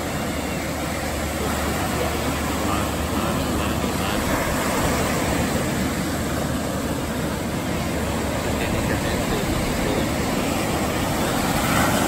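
Ocean surf breaking and washing up onto a sandy beach: a steady rushing wash that swells a little as waves come in.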